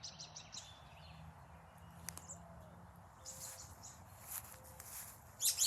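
Faint, short high chirps of small birds, with brief rustling sounds in the second half, the loudest near the end.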